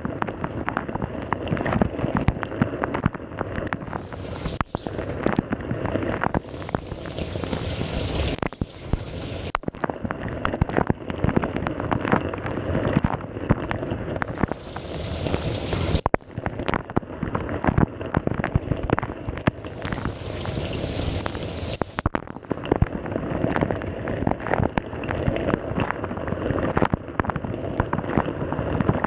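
Samsung dishwasher running a wash cycle: water spray pattering and splashing against the tub in a dense, irregular patter. A sharper hiss comes and goes for a second or two at a time, about five times.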